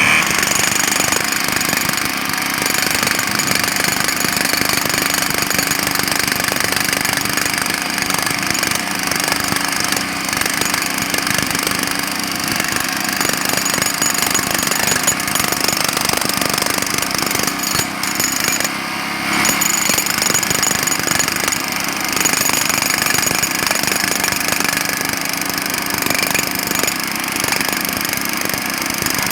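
Jackhammer hammering continuously in very rapid blows, with a brief falter about two-thirds of the way through.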